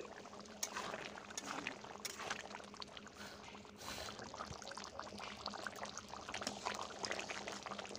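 Thick chicken curry gravy bubbling in a metal pan, a dense run of small pops and crackles, with a metal spatula stirring and now and then knocking or scraping the pan.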